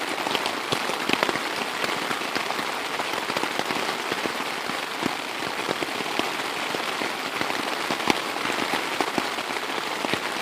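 Steady rain falling, with a constant hiss and many sharp drop impacts scattered through it.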